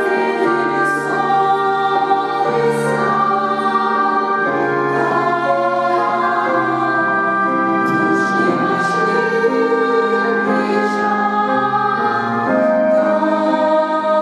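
Church choir singing held chords in several parts, low and high voices together, moving from chord to chord every second or two.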